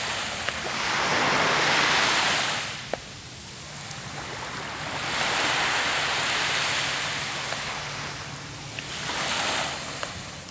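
Small sea waves breaking and washing up on a sandy shore, the surf rising and falling three times.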